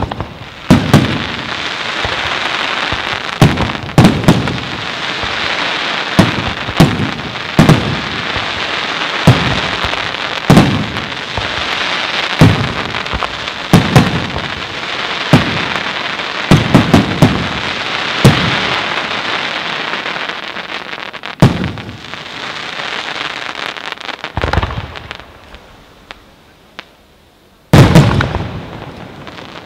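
Fireworks display: aerial shells bursting with sharp bangs every second or so over a steady crackle of burning stars. The crackle dies away near the end, then a fresh volley of loud bangs goes off.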